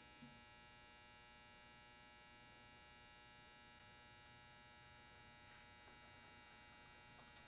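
Near silence: a faint, steady electrical hum made of several fixed tones, with no other sound standing out.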